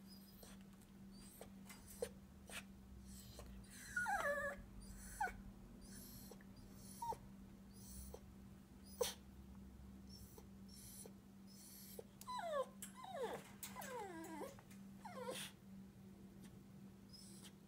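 Small dog in a wire crate whining: a high falling whine about four seconds in and a run of whines between about twelve and fifteen seconds, with a few sharp clicks between them.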